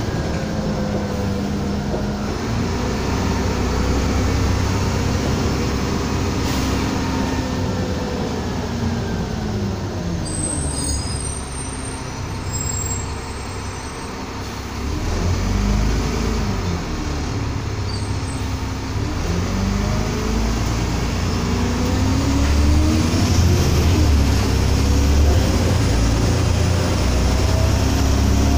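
Diesel engine of an Alexander ALX400 double-decker bus heard from the upper deck, under a steady low rumble: the engine note falls as the bus slows, then from about halfway rises again in several steps as it pulls away and changes up.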